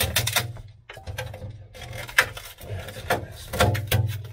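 Irregular scrapes and knocks as old sound-deadening mat is pried and scraped off the floor pan of a 1969/70 VW Beetle 1300.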